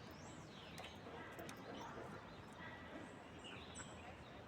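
Small birds calling with quick, high, downward-sweeping chirps, several in a row, over faint steady background noise.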